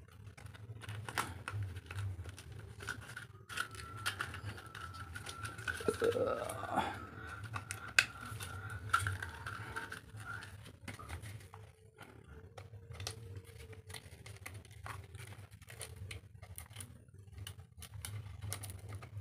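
Sandpaper sheet being handled and clipped onto the pad of a Black & Decker palm sander: soft paper crinkling and scattered small clicks, over a low steady hum. A faint steady tone runs in the background for several seconds, with a brief rising glide near the middle.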